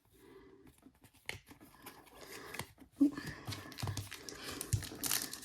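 Trading cards being handled and shuffled: light clicks and rustling that build into steadier crinkling about halfway through.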